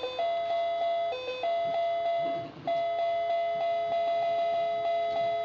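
Baby's electronic activity table playing a tune in thin electronic tones. It is mostly one note repeated in quick pulses, about four a second, dipping briefly to a lower note twice.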